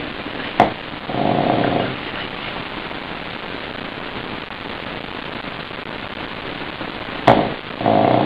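Steady hiss, with two short snores from a sleeping pug about seven seconds apart, each starting with a sharp click.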